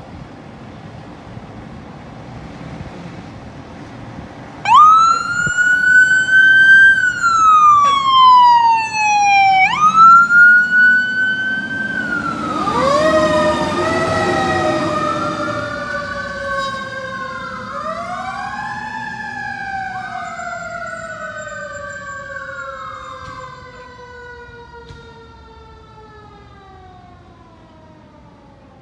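Fire engine's siren starting abruptly about five seconds in, wailing in long sweeps that rise quickly and fall slowly, then overlapping sweeps cross one another as the truck pulls out and passes. The siren fades steadily toward the end.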